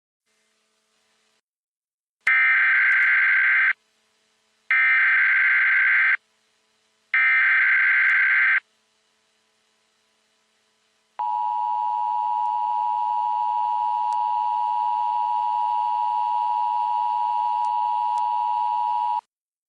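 Emergency Alert System broadcast tones: three bursts of SAME header data tones, each about a second and a half long, then the steady two-tone EAS attention signal for about eight seconds, which cuts off suddenly. Together they mark the start of an emergency alert message.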